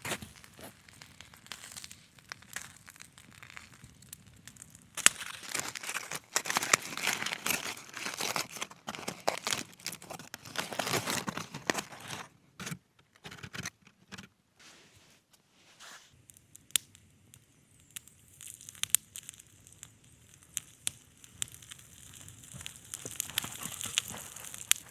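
Crinkling, crackling and tearing handling noise, coming in dense stretches with sharp clicks, heaviest in the first half, then thinning to scattered clicks.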